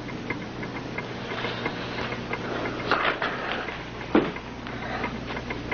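Rapid, even mechanical ticking, about five ticks a second, with two brief swishes about three and four seconds in.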